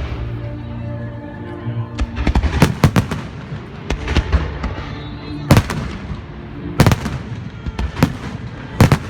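Fireworks and firecrackers going off close by: about ten sharp, loud bangs at irregular intervals, some in quick pairs, over a steady din.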